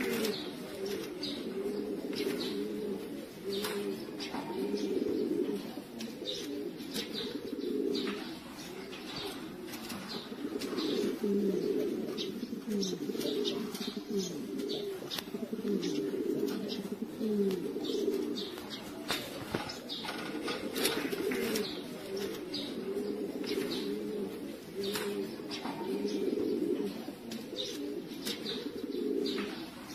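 Several domestic pigeons cooing continuously, their calls overlapping, with scattered short clicks throughout.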